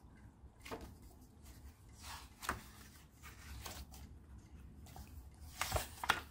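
Pages of a paperback book turned by hand: a few soft paper rustles and flicks as the leaves go over, the loudest near the end.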